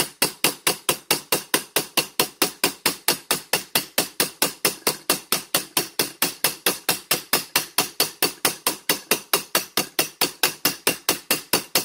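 Round ball-peen hammer rapidly striking a silverware spoon bowl laid face down on a steel rolling-mill texture die, about five even blows a second, hammering a texture pattern into the metal.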